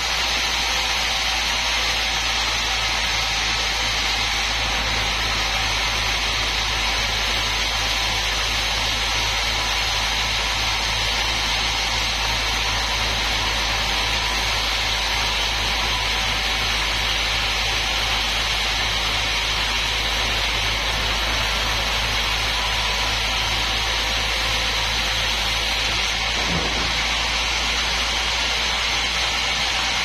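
Sawmill band saw running and cutting lengthwise through a big mahogany log: a steady, unbroken sawing noise with a low, regular pulse from the machine underneath.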